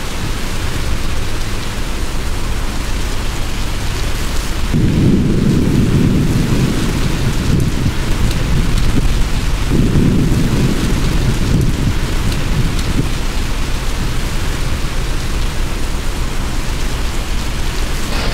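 Heavy rain pouring and gusting wind in a severe thunderstorm, a steady loud hiss. Two long, deep rumbles swell up about five and ten seconds in.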